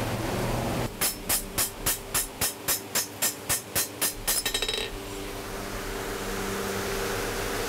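Hand hammer striking a curved steel blade on an anvil, about four ringing blows a second, ending in a quick flurry of light taps. A steady hum follows.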